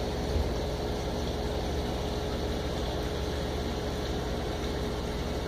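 Aquarium pump running: a steady low hum under an even hiss, with a faint steady tone.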